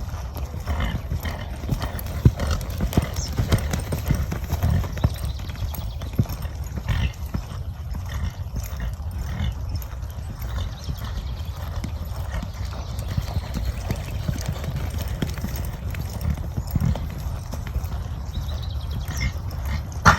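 A horse's hooves clip-clopping in an irregular run of knocks as it moves, over a steady low rumble.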